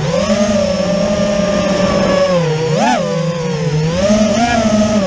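FPV racing quadcopter's brushless motors whining, the pitch rising and falling with the throttle. There is a quick surge and drop about three seconds in, and a smaller surge near the end.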